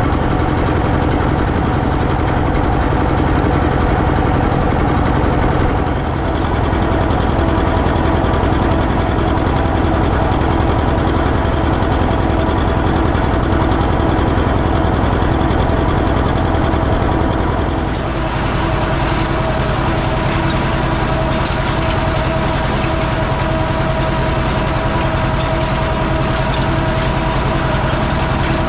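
Tractor diesel engine running steadily. Its note shifts slightly about six seconds in and again about eighteen seconds in, after which a light clattering joins it.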